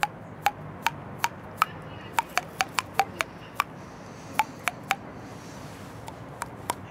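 A series of sharp, irregular clicks or ticks, about two to three a second and thinning out near the end, over a steady low hum.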